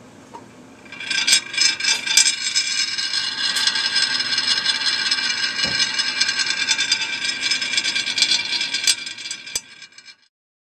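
Handmade lampwork glass spinning top wobbling on a hard plate, its glass body rubbing and rattling against the surface: a loud, ringing, grating scrape with scattered clicks that starts about a second in and cuts off suddenly near the end.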